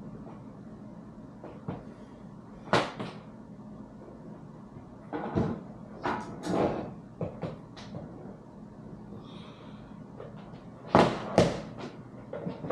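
A series of sharp knocks and clacks, about half a dozen, with a loud pair close together near the end, over a steady low hum.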